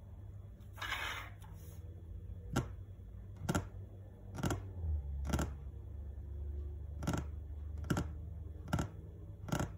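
A brief plastic rustle as a small zip bag is handled and set down, then about eight sharp taps, roughly one a second, of fingers tapping on the tabletop.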